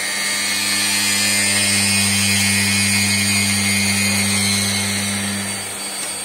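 4-axis CNC router machining aluminium: a steady high-pitched spindle whine with cutting noise, over a low hum that stops near the end.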